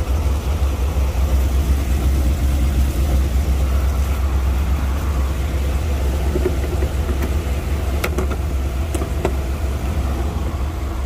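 BMW E53 X5 4.4i's V8 engine idling with a steady low rumble, running on after being jump-started from a dead battery. A few light clicks come about eight seconds in.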